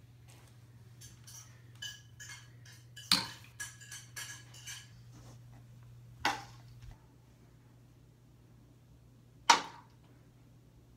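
Celluloid ping pong ball bouncing on a hard floor: a quick run of light, ringing clicks, the loudest about three seconds in. Then two single sharp clicks a few seconds apart as further balls land.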